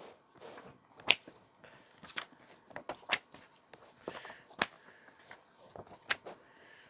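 Comic books being handled and flipped through one by one: a string of sharp paper slaps and clicks, the loudest about a second in and the rest every second or so, with soft rustling between.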